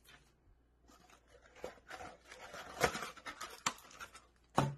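Plastic packaging bags crinkling and rustling as they are handled and set on a stone counter, with a few sharp clicks and taps about halfway through.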